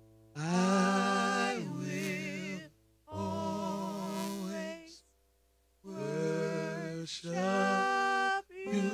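A man singing a slow worship song into a microphone, drawing out long notes with vibrato. He sings three phrases with short pauses between them, and a fourth begins near the end.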